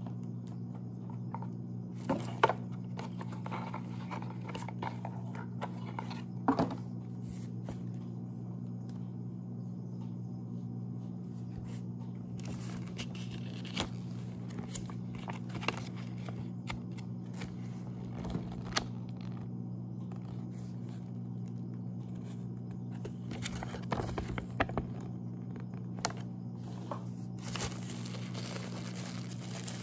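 Plastic packaging crinkling and rustling as a mini tripod is unwrapped by hand, with a few sharp clicks and knocks of the box and tripod on the table, over a steady low hum.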